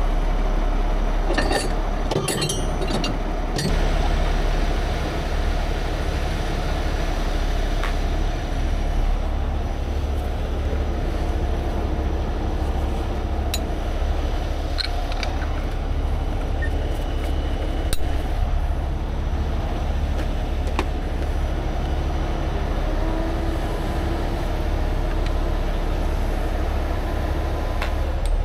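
A 75-ton rotator tow truck's diesel engine idling steadily, with a few sharp metal clinks from chains and rigging being handled, a cluster of them in the first few seconds.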